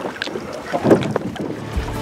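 Wind gusting on the microphone with water noise around a small open boat on a lake, coming in uneven swells. Background music comes in near the end.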